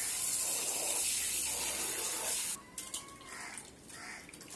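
Water running from an outdoor wall tap, pouring steadily into a steel vessel, then shut off abruptly about two and a half seconds in. After that, lighter splashing as fish is rinsed by hand in a bowl of water.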